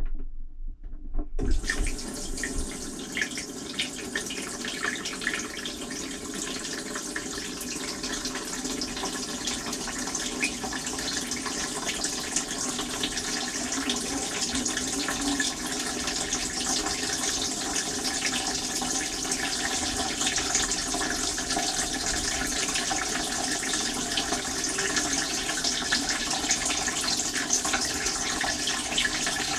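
Dishwasher spraying water during its wash cycle, heard from inside the tub: after a few knocks, a steady hiss of spray starts about a second in and keeps on, with a faint machine hum beneath.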